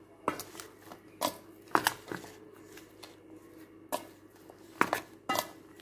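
Metal spoon clinking and scraping against a stainless steel bowl while tossing peanuts and chopped vegetables: a run of irregular, sharp clinks, about eight in all.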